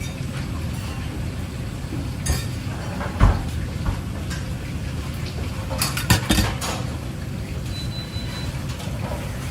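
Dishes and cooking utensils clinking and knocking over a steady low rumble, with a sharp knock about three seconds in and a quick cluster of clinks around six seconds.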